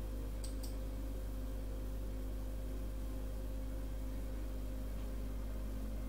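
Steady low hum with a few faint steady tones above it, and two quick clicks close together about half a second in, from a computer mouse clicking to switch browser tabs.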